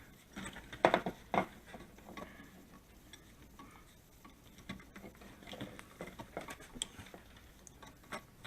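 Scattered clicks, taps and scrapes from a Wi-Fi wall switch and its stiff wires being worked into an electrical wall box, with two louder knocks about a second in.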